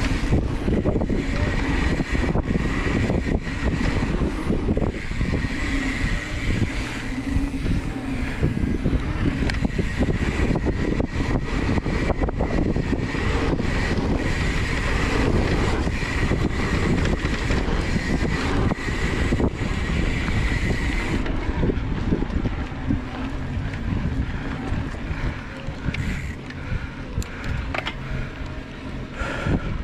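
Mountain bike riding a dirt trail: wind rushing over the microphone and tyre rumble, with frequent rattles and knocks from the bike over rough ground. A thin steady whine runs along with it and stops about two-thirds of the way through.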